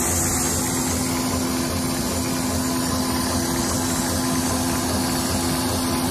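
Pet food production line machinery running steadily: a constant motor drone with a steady low hum.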